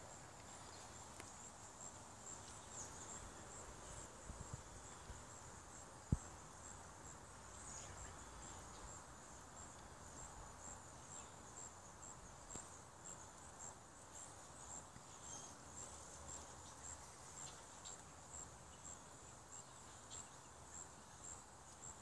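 Faint, steady high-pitched chirping of insects, with an even pulse throughout. A single sharp click comes about six seconds in.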